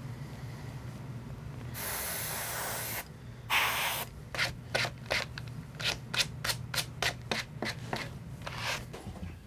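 An airbrush hisses in two bursts, a longer one and then a shorter, louder one, as paint is sprayed onto a taxidermy deer mount's face. Then come quick rubbing strokes, about three a second, as a pad is worked over the mount's face. A steady low hum runs underneath.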